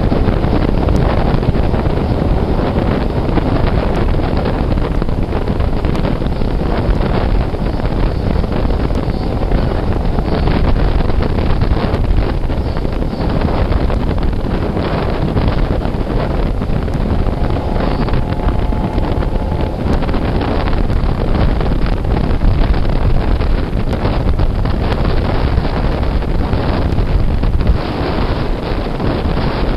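Heavy wind buffeting the microphone at an open window of a moving train, over the rumble of the coaches running on the rails.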